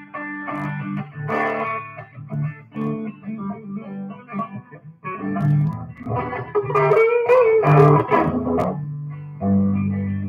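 Live band playing instrumental rock: electric guitar over a bass line, with a louder stretch in the middle where a held guitar note wavers.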